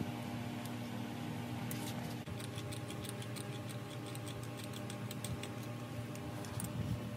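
Rapid light metallic clicking, about five clicks a second in uneven runs, from a hand tool working the bolts of a starter motor housing being reassembled in a vise. It starts about two seconds in, over a steady low hum of shop machinery.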